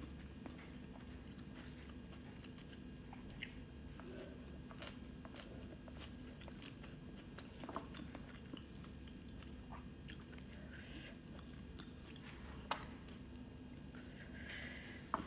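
A person chewing and biting food close to the microphone, with soft, scattered mouth clicks and small crunches over a steady low hum.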